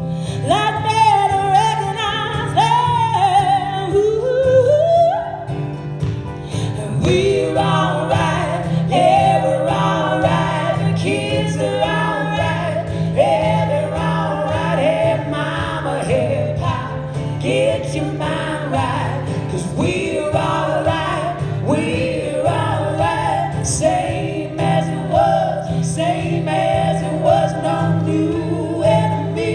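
A live folk song: voices singing a flowing melody over steady accompaniment.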